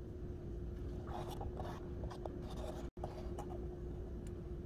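Wooden stick scraping and rubbing inside the metal-ferruled socket of a wooden tool handle, in short soft scratchy strokes, over a steady low hum, with a brief gap about three seconds in.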